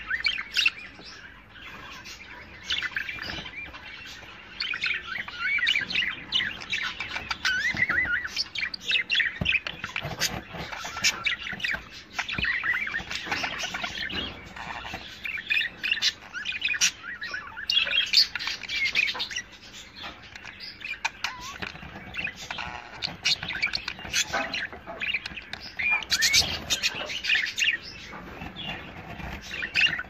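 Budgerigars chattering and warbling: a dense, continuous stream of quick chirps and short squawks.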